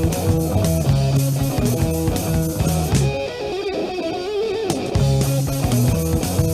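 Instrumental rock from an electric guitar, bass and drum kit. About three seconds in, the drums and bass drop out, leaving a lone guitar line bending up and down in pitch. The full band comes back in about two seconds later.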